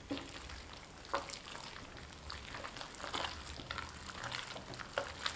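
Minced pork dumpling filling being stirred by a gloved hand in a porcelain bowl as an egg and flavoured oil are mixed in evenly: faint, irregular soft clicks and smacks of the wet meat against the hand and bowl.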